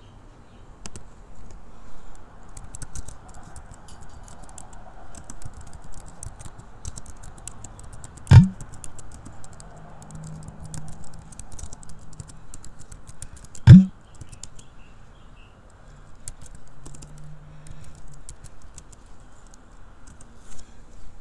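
Typing on a computer keyboard, irregular key clicks as terminal commands are entered. Two loud single thumps stand out, about eight seconds in and again about five seconds later.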